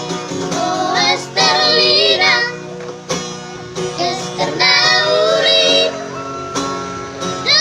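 A trio of children singing together over instrumental backing with guitar, in two long phrases of drawn-out notes that waver in pitch.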